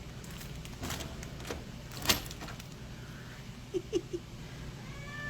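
Clicks and rattles of a metal pet cage door being handled, with one sharp clack about two seconds in, followed near four seconds by three short low squeaks.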